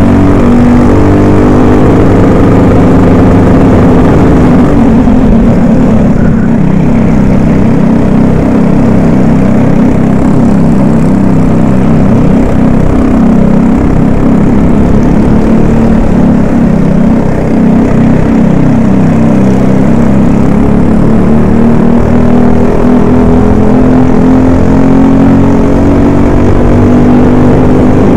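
Racing kart engine heard onboard at race pace, loud, its pitch repeatedly climbing as it accelerates and dropping as it slows into corners.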